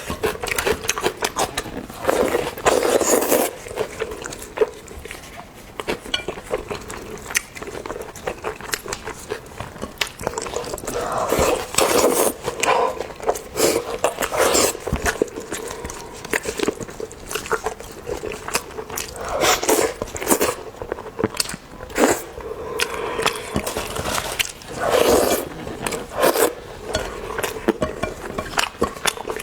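Close-miked eating sounds: a person chewing, smacking and slurping, with many quick sharp mouth clicks and a few short voiced murmurs in between.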